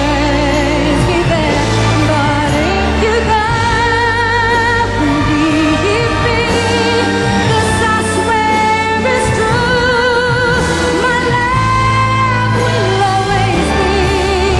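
A female pop vocalist sings a ballad live over band accompaniment, holding long notes with a wide vibrato.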